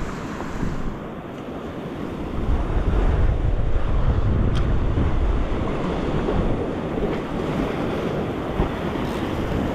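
Ocean surf washing against a rock platform: a steady rush of water that swells louder about two seconds in and eases off after a few seconds.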